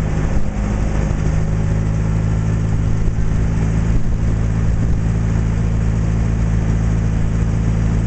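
Boat engine running at a constant speed, a loud steady low drone.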